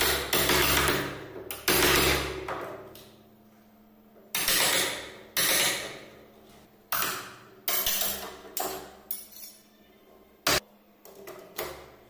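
Hammer blows on a wood chisel, irregularly spaced, each echoing briefly as it fades, chopping out the mortise for a lock in the edge of a wooden door. The blows come closer together after the middle, with a few lighter knocks near the end.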